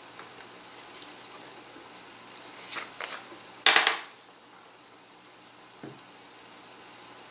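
Hands handling thin balsa sticks and small objects on a tabletop covered with waxed paper: light clicks and short scraping rustles, one sharper clack about halfway through, and a faint knock near the end.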